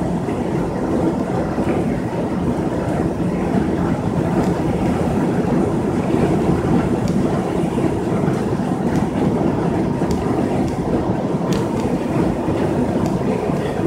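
Steady low rumble of road and engine noise heard from inside a vehicle's cab cruising at highway speed on wet pavement, with a few faint ticks.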